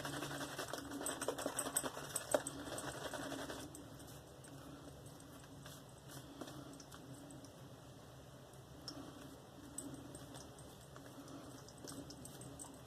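Boar-bristle shaving brush working Mitchell's Wool Fat soap into a lather: a faint, rapid crackle and squish of bristles. It is louder for the first three or four seconds, then quieter with scattered ticks.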